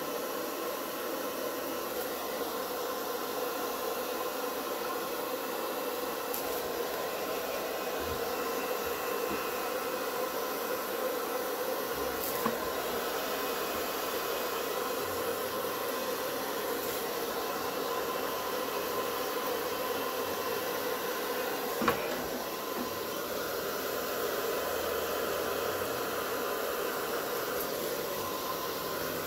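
Handheld hair dryer running steadily, blowing across wet acrylic paint. Two brief clicks are heard, the louder one about twenty-two seconds in.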